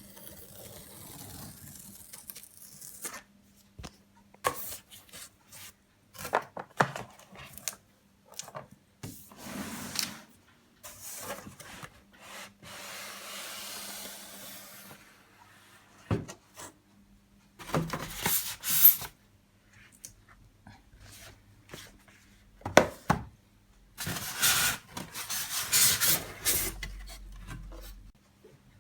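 Cardboard iMac box being opened and its packaging handled: cardboard rubbing and scraping, with scattered knocks and clicks. Louder stretches of rustling and scraping come in the last third.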